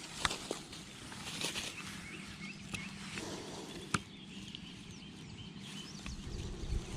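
Quiet pond-side ambience with small birds chirping repeatedly in the background. A few sharp clicks and rustles of handling come through, the loudest about four seconds in, and a low rumble builds near the end.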